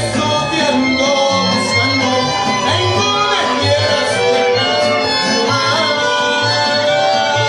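Live mariachi band playing: violins and guitars over a steady, pulsing bass beat.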